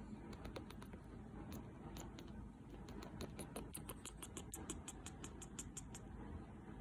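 Small pet bird making a strange sound: short, high squeaky clicks, scattered at first, then quickening into a rapid even run of about six a second that stops shortly before the end.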